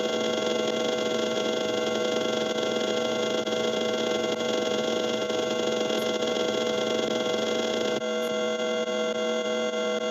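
A steady, buzzing drone sound effect made of many held tones over a hiss, with a slight change in its mix about eight seconds in.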